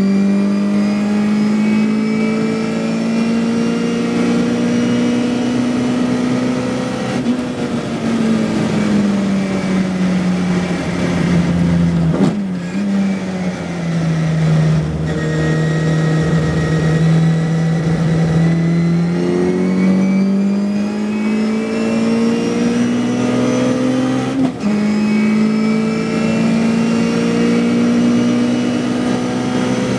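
Classic Mini race car's A-series four-cylinder engine heard from inside the cockpit, revving hard through the gears. The note climbs, falls away about 12 seconds in as the car brakes for a corner, holds a steady lower pitch, then rises again with a sharp drop at an upshift about 24 seconds in before climbing once more.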